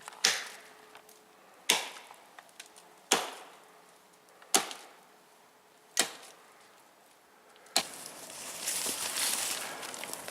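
Axe chopping into a wood log: six sharp blows about a second and a half apart. The blows stop about eight seconds in, and a steady rustling follows.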